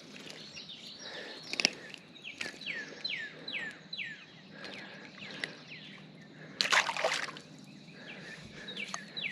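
A wild bird singing a run of short notes that each slur downward, about two a second, over the steady wash of creek water. A brief burst of noise about two-thirds of the way through.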